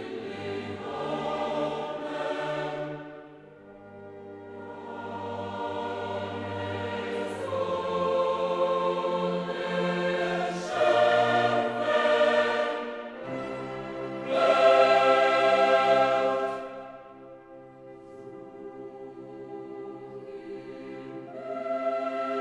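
Choral music: a choir singing long held chords over an orchestral backing, swelling to its loudest a little past the middle and then fading.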